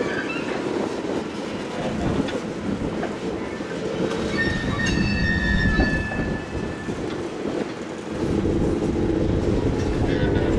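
Freight cars, centerbeam lumber flatcars among them, rolling slowly past on jointed track, with a steady rumble and the clack of wheels over rail joints. Midway through, a steel wheel squeals high against the rail for about two seconds, and the rumble grows louder again near the end.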